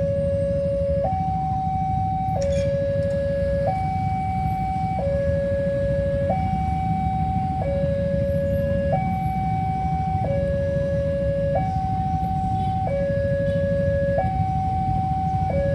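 Railway level-crossing warning siren sounding a steady two-tone alarm, switching between a lower and a higher tone about every 1.3 seconds, the signal that a train is approaching and the barrier is down. A steady low rumble runs underneath.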